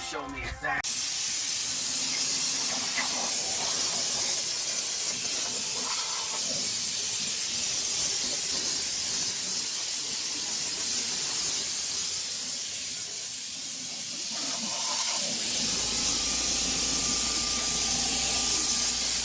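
Steady loud hiss of a pressurised spray used to clean the cylinders and deck of a 5.9 L engine block, starting abruptly about a second in and easing briefly about three-quarters of the way through.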